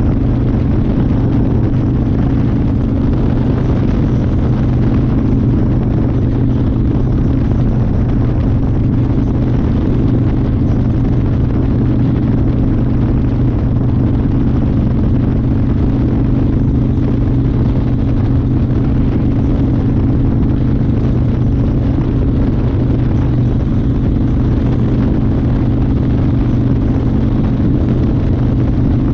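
1992 Harley-Davidson Fat Boy's 1340 cc Evolution V-twin running at a steady cruising speed, its pitch holding level, with wind rushing over a chest-mounted camera microphone.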